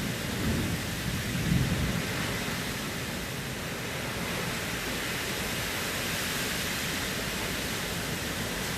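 Heavy downpour: a steady hiss of rain, with low rumbling surges about half a second and a second and a half in.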